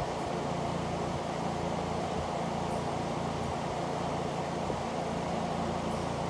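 Electric fan running steadily: a constant whir with a low hum underneath.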